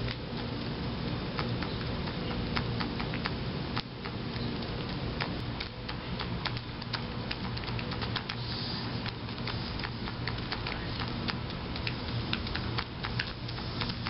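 Mourning doves pecking birdseed from a plate: irregular sharp taps and clicks of beaks striking seed and plate, several a second, over a steady low hum.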